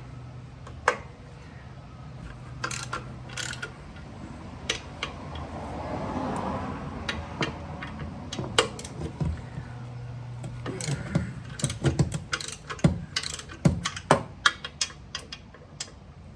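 Ratchet wrench clicking in irregular bursts, with metal tool clinks, while loosening the bolts that hold a clutch pressure plate to the flywheel. The clicks come thicker toward the end over a low steady hum.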